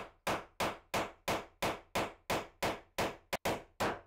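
Hammer blows knocking protruding nails back down into wooden framing, a steady run of about three strikes a second with a quick double strike a little past the middle.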